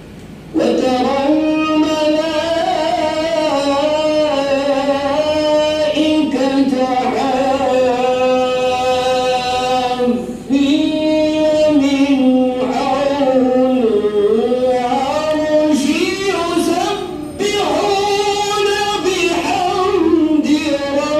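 A man reciting the Quran in a long melodic chant, with held notes and ornamented pitch glides. He pauses for breath about ten seconds in and twice more briefly near the end.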